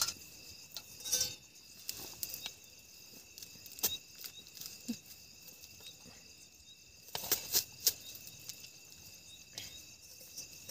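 Steel ladle clinking and scraping against a steel cooking pot and steel plates as curry is served out: scattered single clinks, with a cluster of them about seven seconds in. A steady high chirring of crickets runs underneath.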